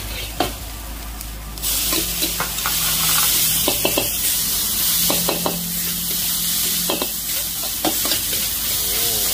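Stir-fry sizzling hard in a hot wok, with a metal ladle scraping and clinking against the pan as the food is stirred. The sizzle gets suddenly louder about two seconds in.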